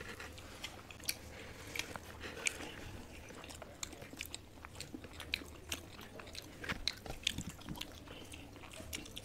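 Close-miked eating sounds: people chewing rice and curry, a quiet run of short, irregular wet clicks and mouth smacks, a little busier about seven seconds in.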